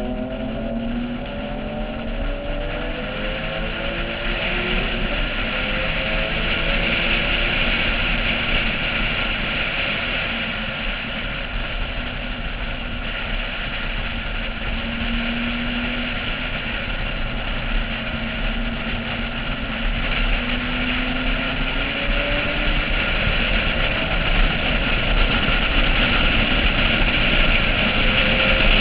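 Porsche 996 flat-six engine under hard track driving, heard from a camera on the car's roof through a heavy rush of wind and road noise. The engine pitch climbs and drops with the revs as it works through the gears.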